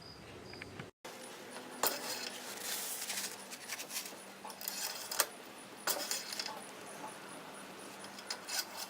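Scattered light metallic clinks and jingles of small metal objects being handled, with a few sharper clicks, over a faint steady hum.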